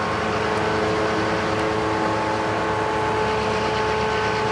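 Norfolk Southern GP38-3 locomotive's 16-cylinder two-stroke EMD diesel running steadily as it rolls slowly through the yard: an even engine drone with a few steady whining tones over it.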